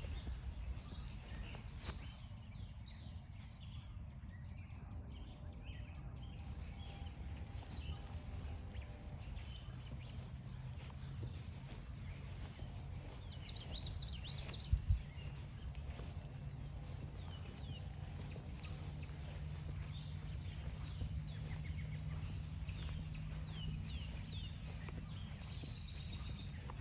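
Songbirds chirping and trilling on a spring forest trail, over the steady crunch of footsteps walking along the path. A low steady hum runs through much of it, and two quick sharp knocks come about halfway.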